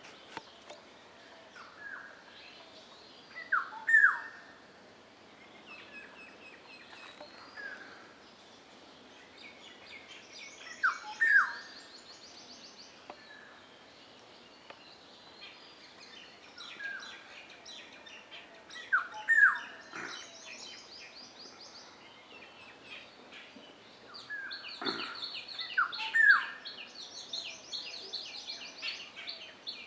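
Black-hooded oriole calling: short, loud notes that slide downward, mostly in pairs, repeated about every seven or eight seconds with softer single notes between. Other small birds chatter in quick, higher trills behind it.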